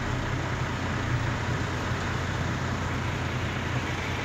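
Truck engine idling steadily, heard from inside the cab as a low, even hum under a constant rush of noise.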